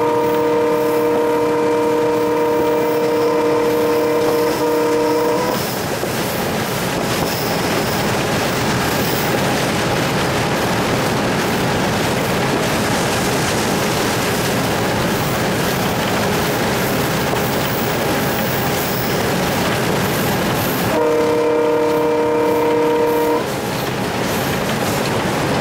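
Alco WDM3A diesel locomotive's multi-tone air horn heard from the cab: a long blast that stops about five seconds in, and a second, shorter blast of about two and a half seconds near the end. Between the blasts there is the steady running noise of the locomotive and its wheels on the rails.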